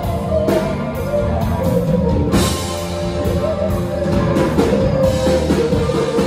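Live band playing: electric guitar, electric bass and drum kit.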